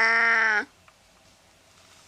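Domestic cat meowing: the end of one long meow held at a steady pitch, cutting off about half a second in.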